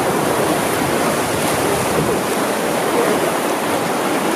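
River rapids rushing and churning past the side of a riverboat: a steady, even rush of white water.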